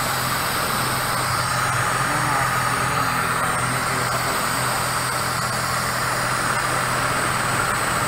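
Toyota Corona's engine idling steadily with an even, unbroken hum, the car running after its no-start fault was worked on.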